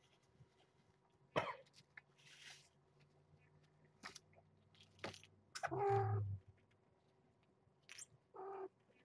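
A person coughs once about six seconds in, the loudest sound here. Around it are light clicks and rustles as cat toys are picked up and moved about on a puppy pad.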